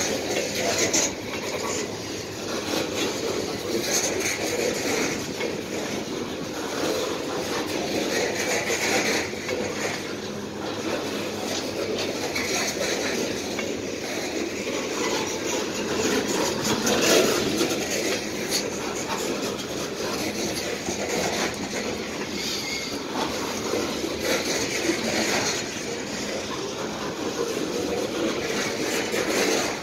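Coal hopper cars of a freight train rolling past: a steady rumble of steel wheels on the rails, with irregular clacks and clanks.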